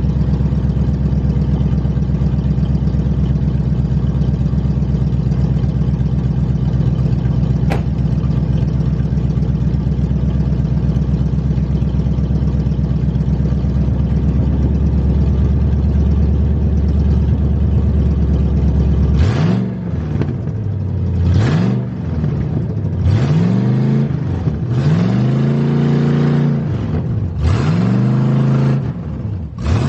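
Car engine idling steadily, then revved up and let fall back five or six times in quick succession in the last ten seconds. This fits the driver working the throttle to get a car with a bad transmission to move.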